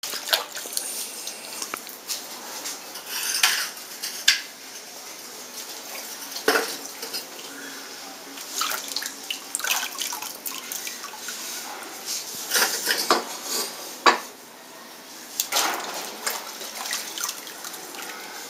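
Liquid glaze sloshing and dripping as small fired clay pieces are dipped by hand into a large tub of glaze, with scattered sharp clinks and knocks of the ceramic pieces.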